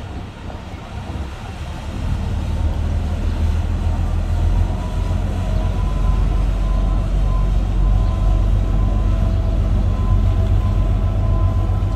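Jet Express catamaran ferry's engines running with a deep, steady rumble as the boat comes in close to the dock. It grows louder about two seconds in, with a faint steady whine above.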